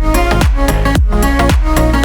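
Background electronic dance music with a steady four-on-the-floor kick drum, about two beats a second, under held synth chords.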